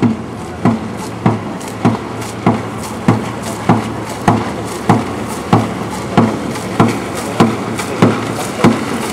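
Dragon boat drum beaten in a steady rhythm of about one and a half to two beats a second, marking the paddlers' stroke rate, over a low steady hum.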